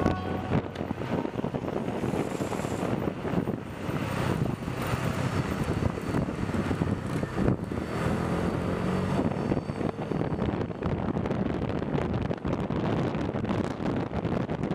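Wind rushing over the microphone of a camera moving fast down an asphalt road, with a steady rolling road rumble beneath it.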